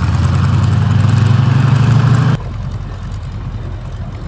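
M4 Sherman tank's radial engine running as the tank drives and turns, a loud low steady tone. About two seconds in the level drops suddenly to a quieter rumble.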